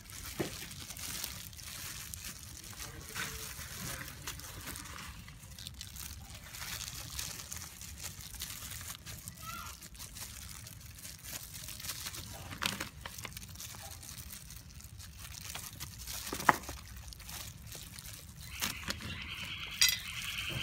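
Thin plastic disposable gloves crinkling and loose potting soil rustling as it is scooped and pressed into small plant pots. A few sharp taps stand out, the loudest about sixteen seconds in.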